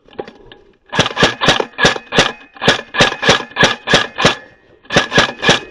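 Airsoft gun firing rapid single shots, about four a second: a run of about a dozen, a short pause, then three more.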